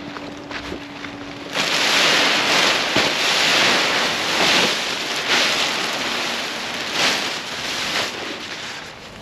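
Wind noise on the microphone: a steady low hum gives way suddenly, about a second and a half in, to a loud, uneven rush of wind that surges several times and eases near the end.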